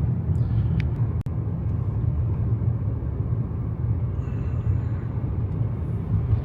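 Steady low rumble of a car driving through a long road tunnel, heard from inside the car. The sound drops out for an instant about a second in.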